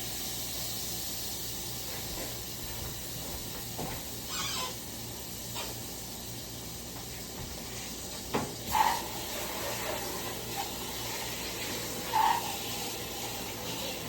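Steady hissing, with a few short knocks or clinks about four, eight and twelve seconds in.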